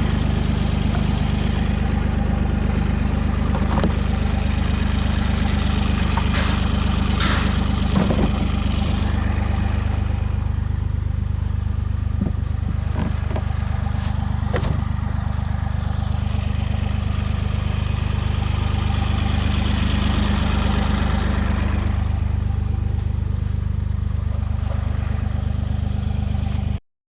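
Avant 860i compact loader's diesel engine running at a steady speed, with a few sharp knocks and rattles.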